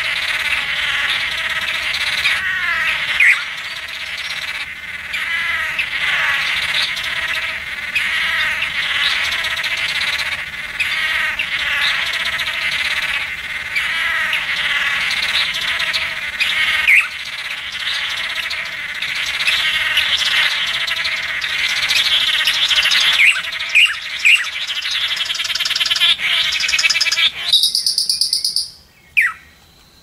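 Chorus of male blue manakins calling during their lek display, many overlapping, repeated calls. It cuts off suddenly near the end, leaving a few high, clear notes and a falling whistle.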